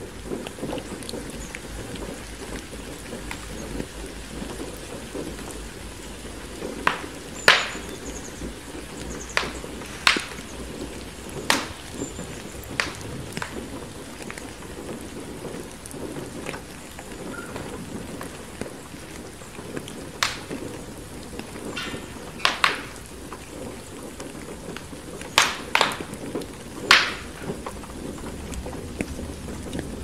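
Steady rain, with a wood fire crackling and about a dozen sharp pops, some in quick pairs, from about seven seconds in.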